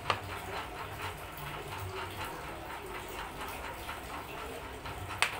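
Food cooking in a pan on the stove with a steady light crackle. Two sharp knocks, one just after the start and one near the end, like a utensil against the pan.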